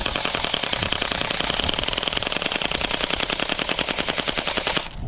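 Airsoft gun firing on full auto: a fast, even, unbroken stream of shots lasting about five seconds, which stops just before the end.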